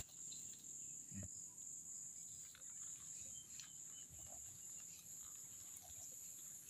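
Faint, steady high-pitched chirring of insects, with a soft thump about a second in.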